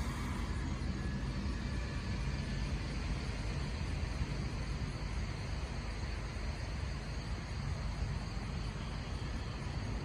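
Steady low engine rumble with a background hiss, without distinct events.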